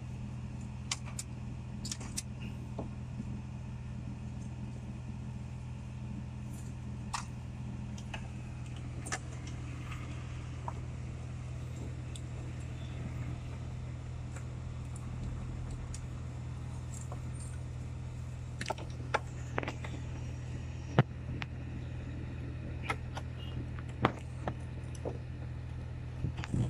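Scattered short clicks and knocks of car wiring, connectors and plastic dash parts being handled, more frequent in the second half, over a steady low hum inside a car cabin.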